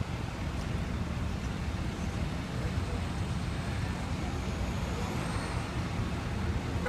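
Steady street traffic noise: a low, even rumble of passing vehicles.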